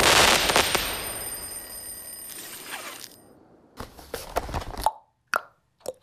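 An explosion-like boom sound effect fading out over about three seconds, with a high ringing held over it. Then a quick run of short clicks and pops.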